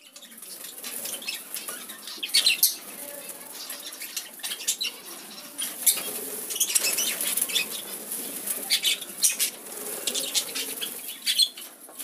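Budgies flapping their wings as they fly about and land on the corn cobs, in repeated short flurries with many sharp little clicks.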